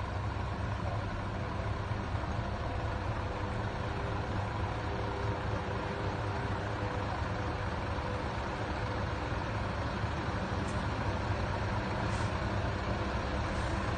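Diesel engines of Scania tractor units running as the trucks roll slowly past one after another, a steady low drone.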